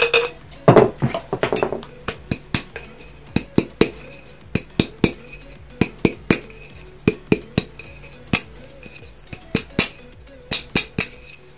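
Hands tapping and patting a glass mason jar to spread glitter inside it: sharp glassy clicks, about one or two a second, with a brief rustling shake about a second in as glitter goes into the jar.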